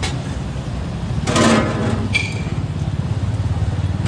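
Steady low rumble of road traffic, with a louder brief sound with a ringing, pitched quality about a second and a half in.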